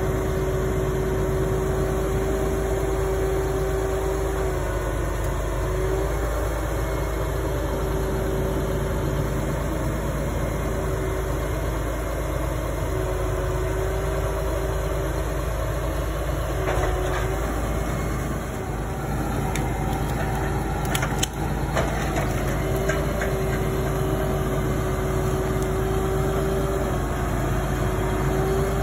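Tractor engine running steadily to drive the hydraulics of a Sedlmayer RW-HS-18 forestry crane trailer, with a steady whine that dips briefly now and then as the crane works. A few knocks of logs coming onto the load past the middle, one sharper thump about three-quarters through.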